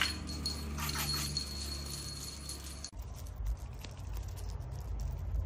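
Small bell on a feather-wand cat toy jingling in quick shakes as the wand is waved. About three seconds in the jingling cuts off abruptly, leaving a low steady rumble with faint rustles.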